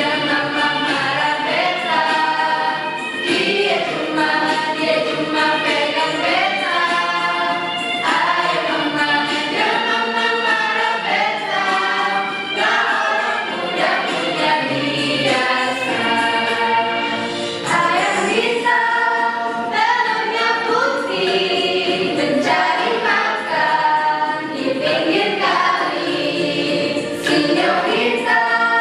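A choir singing, many voices together in harmony, phrase after phrase.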